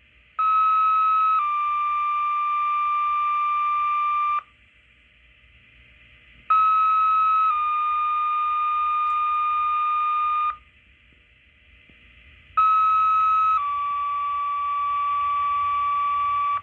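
Two-tone sequential radio paging tones for a fire and EMS tone-out, heard over a scanner. Three times, a steady tone of about a second steps down to a slightly lower tone held about three seconds, with radio hiss between each set. These are the alert tones that set off the departments' pagers ahead of a dispatch.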